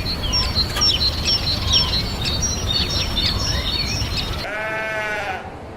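Many small birds chirping together over a low rumble, cutting off abruptly about four and a half seconds in. Then a single high bleat from a sheep, under a second long.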